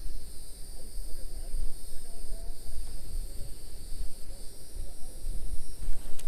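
Wind buffeting the microphone in gusts, a heavy uneven rumble, over a steady high-pitched hiss.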